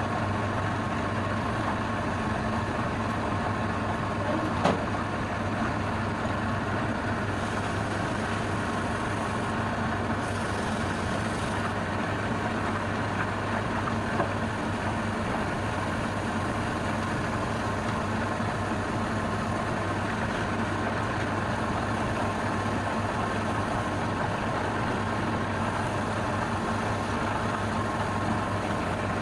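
Wood lathe motor running steadily with an even hum, with a short tick about five seconds in and another about fourteen seconds in.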